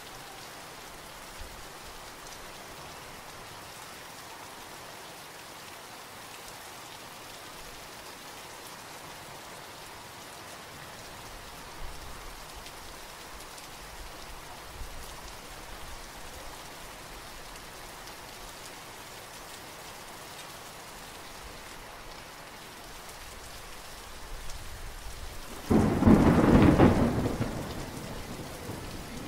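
Steady rain falling. Near the end, a sudden loud clap of thunder that rumbles away over a couple of seconds.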